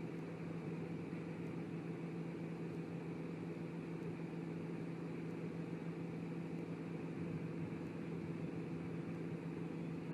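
Steady low drone with hiss, the engine and road noise of a moving vehicle heard from inside the cabin.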